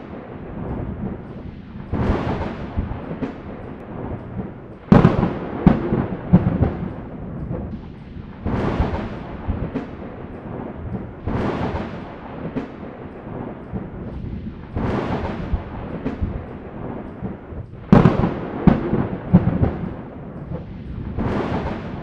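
Thunder: a series of about seven claps, one every three seconds or so, each opening with a sharp crackling crack and fading into a low rumble. The loudest cracks come about five and eighteen seconds in.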